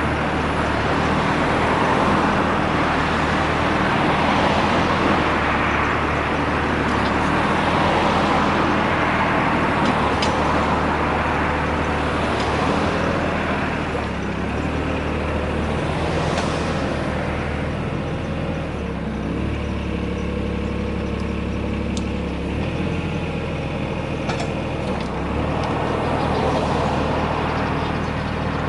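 Yanmar VIO20-1 mini excavator's diesel engine running, its pitch stepping down and back up several times as the hydraulics are worked, with a steady hiss and a few sharp clicks.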